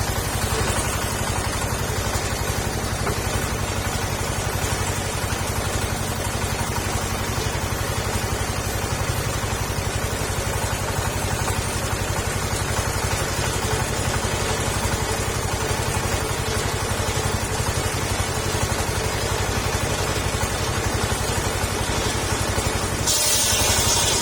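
Gasoline engine of a mobile circular saw running steadily. A louder hissing noise sets in near the end.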